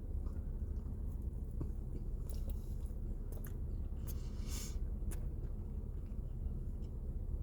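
A person chewing a bite of soft pumpkin spice cinnamon roll, with a few short wet mouth clicks, over a steady low hum.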